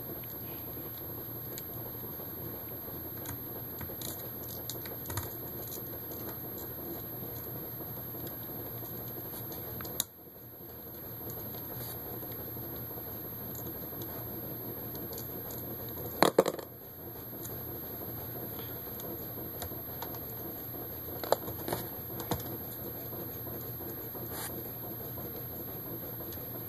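Scattered small clicks and taps of a screwdriver, screws and plastic parts being handled on a laptop's screen assembly, with a sharper clatter about sixteen seconds in and a few more clicks near the end, over a steady low hum.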